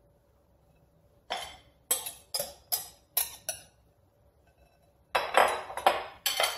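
Kitchen utensils clinking against a glass mixing bowl: about six sharp taps, a short pause, then a longer run of clattering knocks and scrapes.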